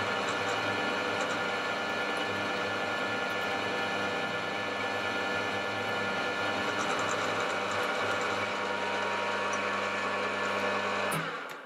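Milling machine spindle running at a slow 180 rpm while a three-flute HSS countersink cuts a countersink into a hole in metal, fed by hand: a steady motor and gear hum. The sound cuts off abruptly near the end.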